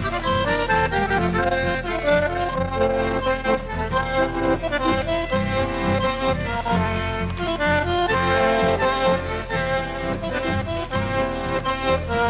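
Instrumental Corrientes folk music from a cassette: an accordion plays a lively run of melody over strummed guitars and a deep guitarrón bass line.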